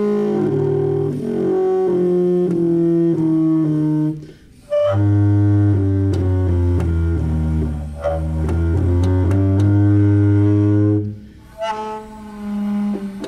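Valved low brass horn played through a homemade foghorn-style mouthpiece, blown through a tube, sounding a string of held low notes that change pitch. There is a short break about four seconds in and another near eleven seconds, then one last shorter note.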